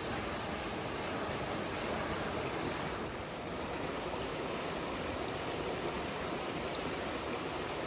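Mountain stream rushing over rocks: a steady wash of running water.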